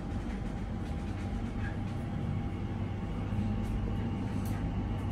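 Steady low rumble and hum inside an Elizabeth line Class 345 train carriage, growing a little louder about three seconds in.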